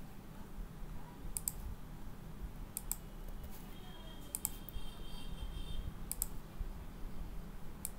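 Computer mouse and keyboard clicks, about five in eight seconds, each a quick double click, over a faint low steady hum.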